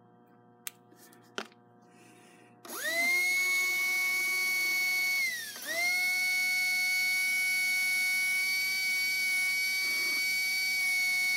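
Slot-car pancake armature, its shaft bearings freshly oiled, spun up in a dynamic balancing rig: a high whine climbs quickly to a steady pitch about two and a half seconds in, sags and recovers just past five seconds, then holds steady. It sounds pretty good but then gets unstable, so the balance is not quite there yet. Two faint clicks come before the spin-up.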